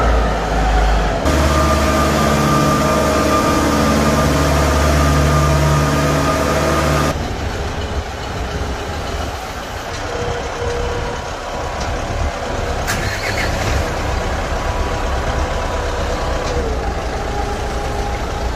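Kubota M7040 tractor's four-cylinder turbo diesel running as it drives along, with a steady turbo whistle. About seven seconds in the sound changes abruptly to the engine running rougher and quieter at low speed, with a single sharp knock near the end.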